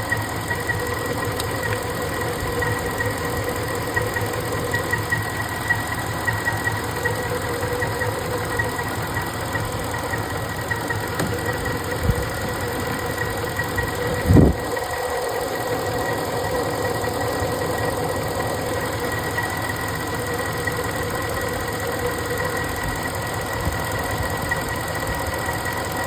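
Ford 5.4-litre three-valve V8 idling steadily while being checked for a misfire, with a brief thump a little past halfway.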